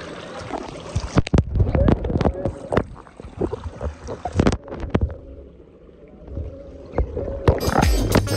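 Irregular knocks and thumps of people and a handheld phone against a plastic water slide, with water splashing. Background music comes in near the end.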